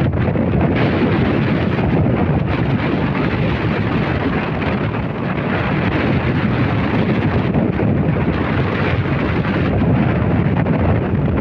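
A waterfall's loud, steady rush of falling water.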